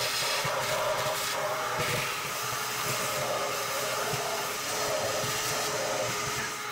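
Mini shop vac running steadily with a constant motor whine, its crevice nozzle sucking ash and dust off the bottom of a grill barrel.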